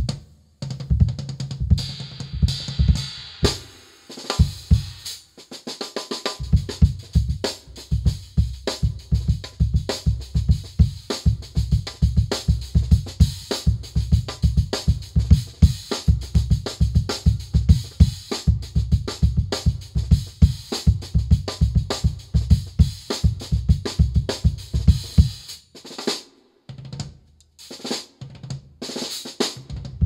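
Acoustic drum kit played with sticks: kick drum, snare and hi-hat in a steady, busy groove with cymbal wash on top. The playing stops briefly about four seconds in, picks up again, and breaks into a few scattered hits near the end.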